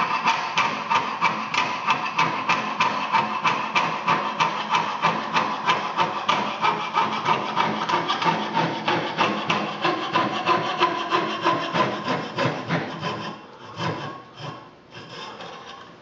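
Coping saw cutting a slot through a thin wooden board along a marked centre line, in steady, even push-pull strokes about three a second. The strokes fade out about thirteen seconds in, leaving a few scattered quieter sounds.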